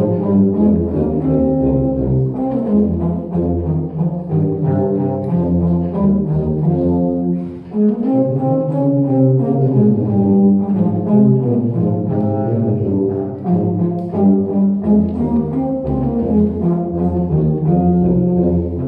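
Live classical duet in the low register: a slow, sustained melody played over a bass accompaniment, with a short break in the phrase about seven and a half seconds in.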